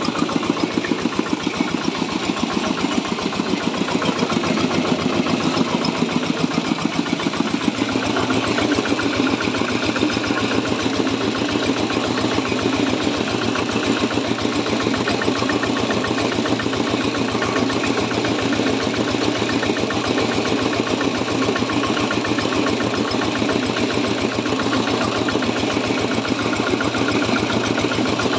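Diesel engine driving a corn grinding mill, running steadily with a fast, even pulse. About eight seconds in, the tone shifts and the sound becomes steadier.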